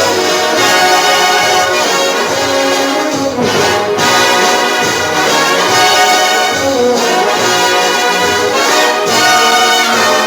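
Loud orchestral big-band music with brass leading, playing an instrumental passage as the dance's backing track.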